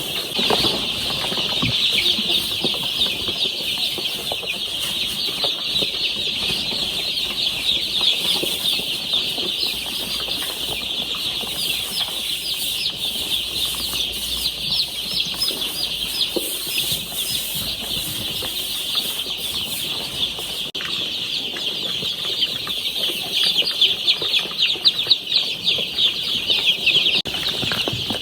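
A brooder full of young chicks peeping constantly, many high chirps overlapping, growing busier and louder near the end.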